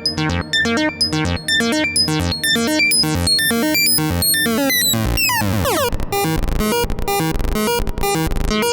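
Weston Precision Audio TZO through-zero VCO in a Eurorack modular synthesizer playing a rapid sequence of short, bright synth notes. About five seconds in, a cascade of falling pitches sweeps down, and a deep bass pulse joins the sequence.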